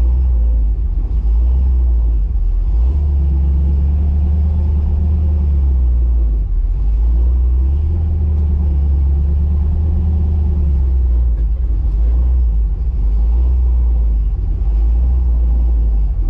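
Hot-rod car engine on a freshly fitted FiTech throttle-body fuel injection system idling steadily, its low note swelling and easing every few seconds.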